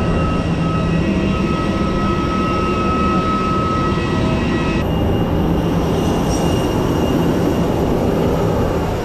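Loud, steady jet aircraft noise: a rumble with several high whining tones held over it. The tones shift abruptly about five seconds in.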